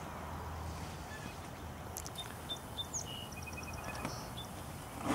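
Zipper on a fabric golf cart enclosure being zipped shut, faint against steady outdoor background noise, with a few light clicks about two seconds in.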